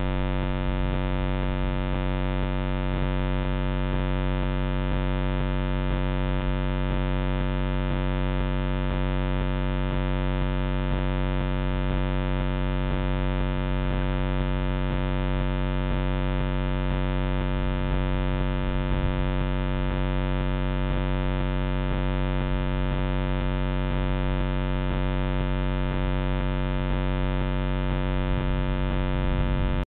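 Steady electrical buzzing hum from a trail camera's own recording electronics: a low hum with many even overtones, unchanging throughout.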